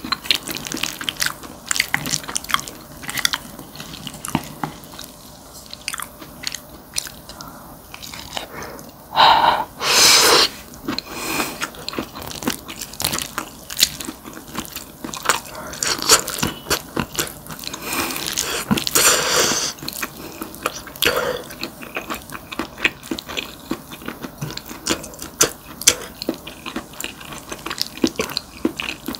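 Close-miked eating of fried rice: chewing with many short sharp clicks throughout, and a couple of louder, longer noisy stretches about a third of the way in and again about two-thirds through.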